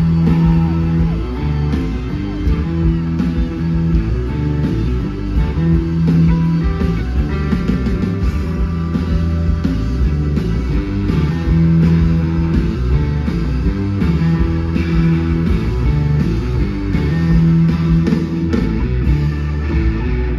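Live electric blues-rock band playing loud, with electric guitars, bass and drums and no singing. A strong low riff note returns about every six seconds.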